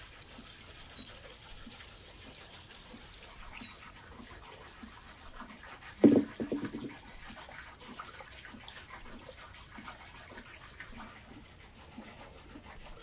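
Quiet outdoor background with a couple of small bird chirps early on. About halfway through comes one loud low thump, then about a second of softer quick sloshes, from a steel bowl of water with a cleaned stomach soaking in it being handled.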